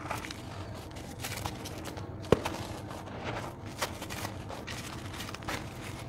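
Dry red dirt blocks handled and crumbled by hand into loose powdery soil: soft gritty crunching and rustling with a few small clicks, and one sharp knock a little over two seconds in.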